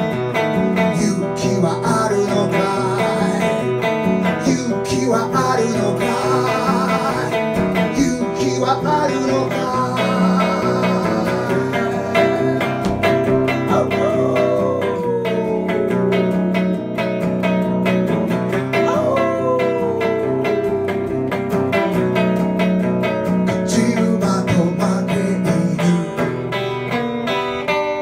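Electric hollow-body guitar played live, a steady strummed and picked passage, with two long downward slides of pitch a little past the middle.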